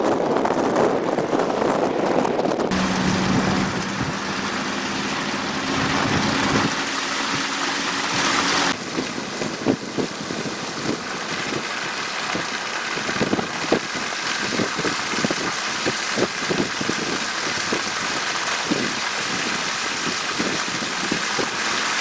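Blizzard wind rushing, in several cut-together stretches. About three seconds in, a steady low hum joins it for about six seconds. From about nine seconds in, irregular sharp ticks of pelting snow and sand run over the wind.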